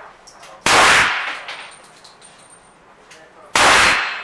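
Two shots from a Smith & Wesson Model 25 revolver firing .45 Colt, about three seconds apart, each trailing off in a short echo.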